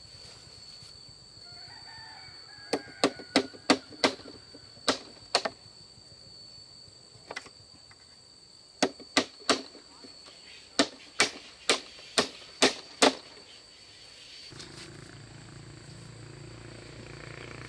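Hammer blows on a bamboo gate frame, striking at the joint of a crossbar and post, in two quick runs of about seven and nine strikes. A rooster crows faintly near the start.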